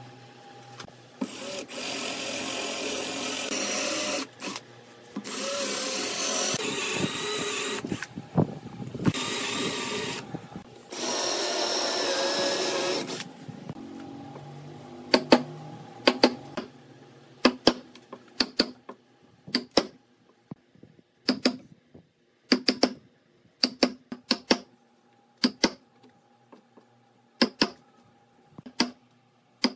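A power drill boring holes into a wooden slab in four runs of a few seconds each. Then a chisel is struck again and again, sharp knocks about once a second, chopping out a butterfly-key mortise between the drilled holes.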